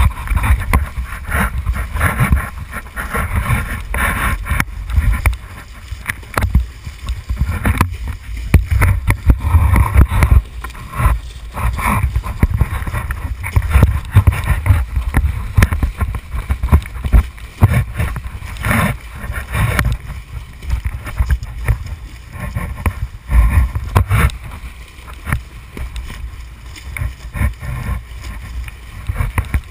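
Kiteboard planing fast over choppy sea: rushing water and spray, with the board knocking irregularly over the chop and heavy wind buffeting on the microphone.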